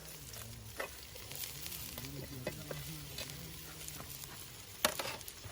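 Small shallots frying in hot coconut oil, a faint steady sizzle, with a few sharp clicks of a spoon stirring in the pan, the loudest near the end.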